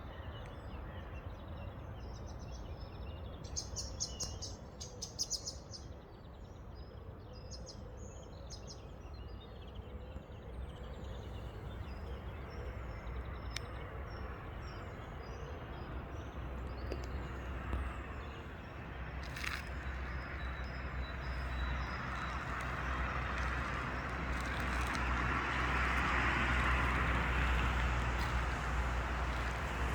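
Small songbirds chirping and twittering in woodland at dawn, busiest about four seconds in, over a steady low rumble. In the second half a rushing noise slowly swells and is loudest near the end.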